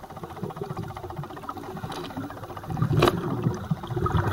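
Underwater recording of scuba regulator exhaust bubbles: a low bubbling and crackling that swells about three seconds in, with one sharp click there.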